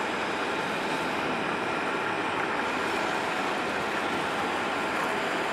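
Steady noise of airliner jet engines: an even rush with faint, thin whining tones above it, unchanging in level.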